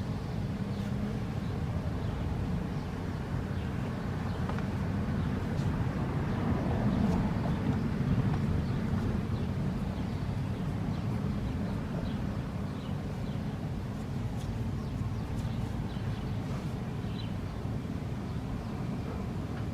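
Outdoor traffic noise, with a vehicle passing and growing louder around seven seconds in; no siren tone is heard.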